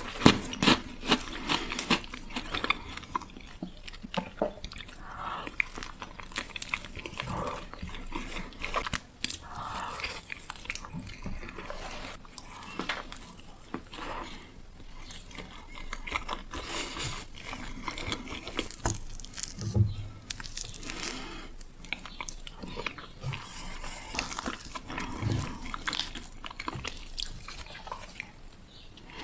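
Close-miked eating: a person biting and chewing food, with many sharp crunchy clicks and mouth sounds.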